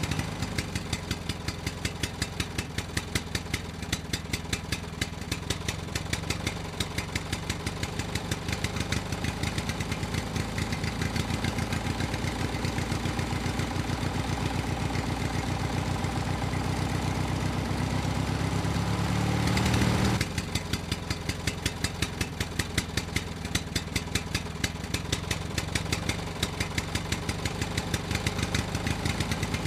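An engine running at a steady idle with a rapid, even chugging. It swells briefly about two-thirds of the way through, then drops back abruptly.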